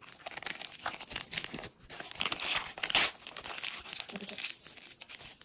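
Crinkling and tearing of plastic wrappers as tiny toy pieces are unwrapped from their packaging, an irregular crackle that is loudest about three seconds in.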